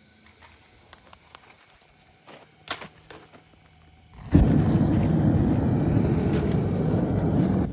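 Gas forge burner being lit: a sharp click about two and a half seconds in, then the burner catches suddenly about four seconds in and burns with a loud, steady, low rushing noise.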